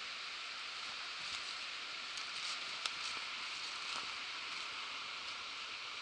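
Footsteps on dry leaf litter and twigs, a few sharp crackles, over a steady high hiss of forest background.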